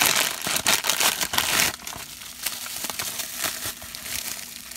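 Thin black plastic bag crinkling loudly as it is pulled open and off a small vinyl figure, for about the first second and a half. Then the quieter crackle of bubble wrap being handled and peeled from the figure.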